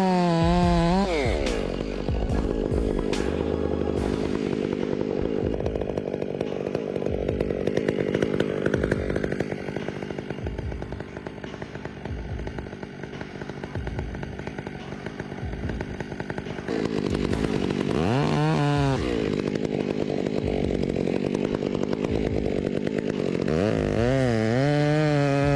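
Two-stroke chainsaw cutting through wood: it revs freely, then runs steadily under load in the cut for long stretches, revving up and back down briefly about eighteen seconds in and again near the end.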